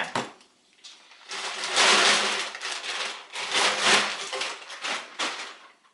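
Handling noise from a set of stainless steel exhaust headers being picked up and turned over: a rustling, clattering stretch with many small knocks and clinks, from about a second in until near the end.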